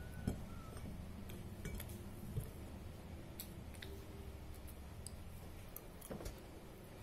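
Metal spoon clinking and scraping against a ceramic bowl while eating, about seven light clinks at irregular intervals, the sharpest just after the start, over a low steady background hum.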